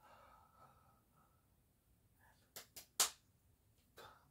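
Sounds from a man signing without speaking: a faint breathy vocal sound, then three sharp pops in quick succession, the third the loudest, and one more about a second later.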